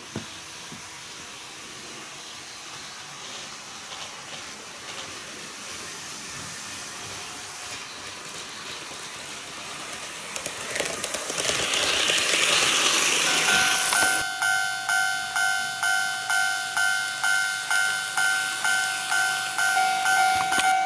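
HO-scale model diesel railcars running on track, growing louder as they approach and passing close with a clicking rush about ten to fourteen seconds in. From about thirteen seconds in, a model level crossing's electronic warning bell dings steadily, about one and a half times a second.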